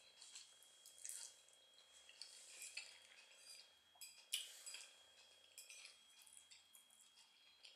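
A metal fork clinking and scraping on a plate as food is picked up, with soft close-miked chewing. The sharpest clink comes about four seconds in.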